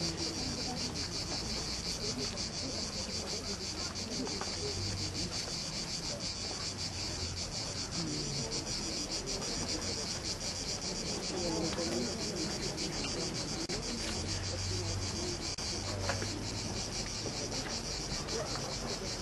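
Steady high-pitched chirring of insects, with a fast, even pulse.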